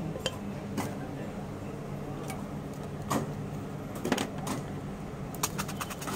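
Steady low background hum with scattered small clicks and knocks of tins and utensils on a metal paan counter. Near the end comes a quick run of small clicks as a tin is handled over the betel leaf.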